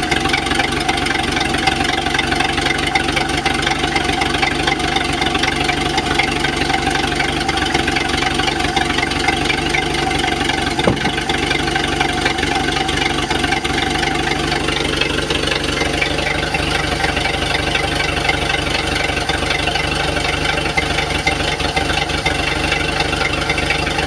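Engine idling steadily, with the knock that the owner presents as an engine knock problem. There is one brief sharp tick about halfway through.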